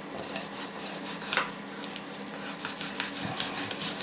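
Chef's knife sawing back and forth through a hot-smoked pike perch, rasping over the dry smoked skin and the backbone, with one louder stroke about a second and a half in.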